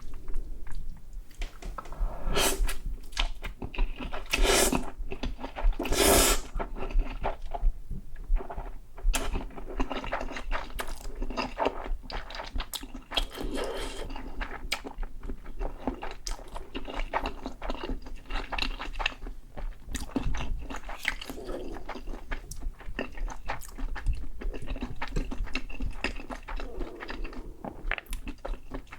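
Close-up eating sounds: a few loud crunchy bites into a fried Korean corn dog's crisp batter a couple of seconds in, then steady crunchy chewing.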